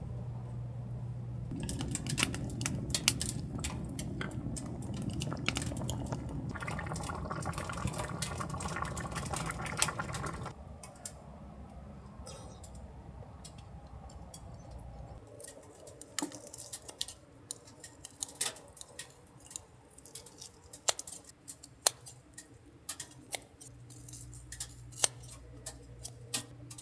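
Utensils clinking and tapping against a stainless steel pot and dishes, with kitchen scissors snipping fried back ribs near the end. A low steady hum sits under the start and the last few seconds.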